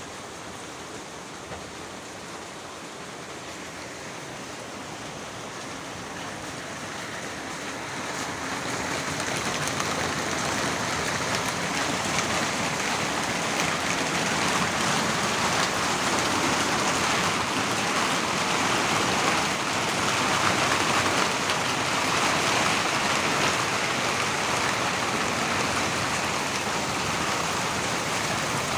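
Heavy rain pouring down in a thunderstorm downpour, a steady hiss that builds over the first ten seconds or so and then holds steady.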